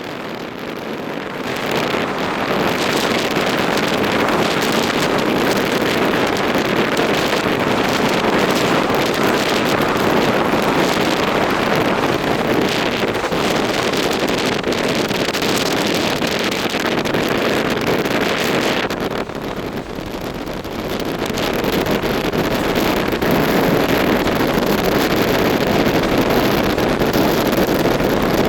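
Running noise of a moving passenger train heard from on board, a steady rush of wheels on track with wind buffeting the microphone. It drops briefly quieter about two-thirds of the way through, then picks up again.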